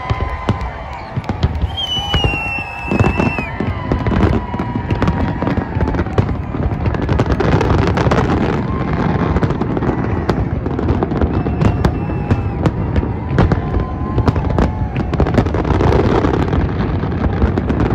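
Large aerial fireworks display: shells burst in rapid, overlapping bangs and crackles that grow denser and more continuous after the first few seconds.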